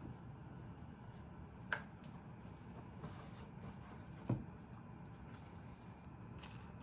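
Quiet room with a steady low hum, broken by two sharp clicks, about two and four seconds in, the second the louder, and a few fainter ticks between.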